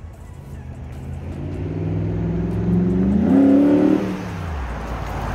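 2006 Jeep Grand Cherokee's 5.7-litre V8 exhaust, now running through a Magnaflow glasspack in place of the cracked front muffler, revved once: the engine note climbs to a peak about three and a half seconds in, then drops back.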